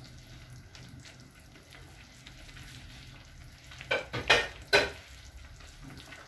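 Tomato fish stew simmering in a frying pan, a steady low bubbling and sizzling. About four seconds in, a quick run of three or four loud knocks at the pan.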